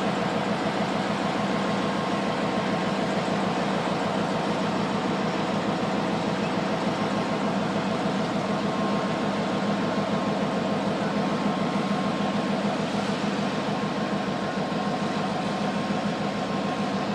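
Diesel locomotive's engine running at low throttle, a steady drone, as it moves slowly hauling freight cars.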